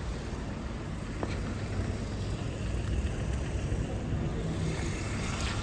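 Vehicle engines idling: a steady low rumble, with one faint click about a second in.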